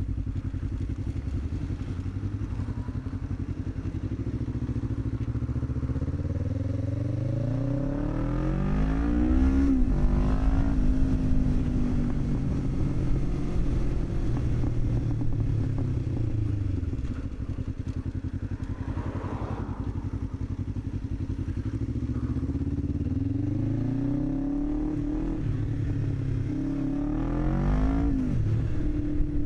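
Motorcycle engine under way, heard from the rider's seat, pulling up through the gears: its pitch climbs and drops back at each gear change, several times over.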